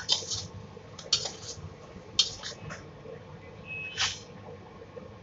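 A metal spoon scraping and knocking against a stainless steel wok while stirring pork in a thick sauce: a handful of sharp scrapes about a second apart, with a brief high squeal just before the last, longest stroke near the end.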